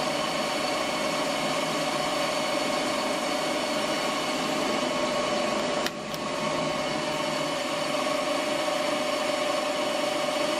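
GEMA LZ 160 centre lathe running under power, a steady mechanical whine with several fixed tones. The sound dips briefly about six seconds in.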